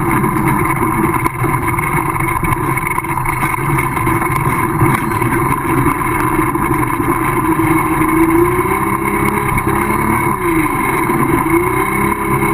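Minsk motorcycle's small two-stroke single-cylinder engine running at low speed, its pitch dipping and rising with the throttle several times in the last few seconds.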